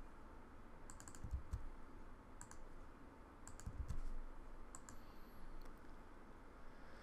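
Faint computer keyboard keystrokes and mouse clicks in a few short clusters, with a couple of dull low knocks.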